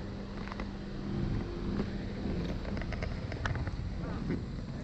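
A motor vehicle engine running with a steady low hum that fades out over the first couple of seconds, over outdoor road noise with a few light clicks.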